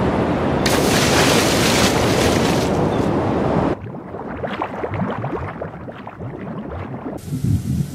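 Loud rush of splashing water and surf as a great white shark breaches and crashes back into the sea. About four seconds in, it cuts abruptly to a muffled underwater soundscape with bubbling and faint clicks, and low throbbing pulses begin near the end.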